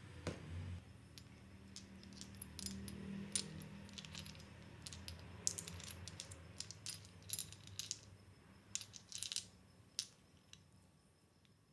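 Aluminium timing pulleys clinking and clicking against one another as a handful of them is turned over in the hands, a loose run of light metallic clinks.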